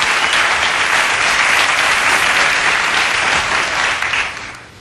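Studio audience applauding, the applause dying away near the end.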